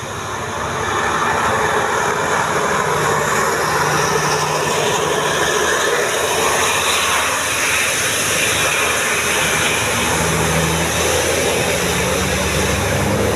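Tour bus driving, with steady engine and road noise; the engine note rises near the end as it accelerates.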